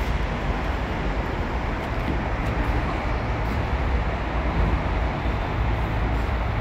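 Steady low rumble of a vehicle engine running, with street traffic noise.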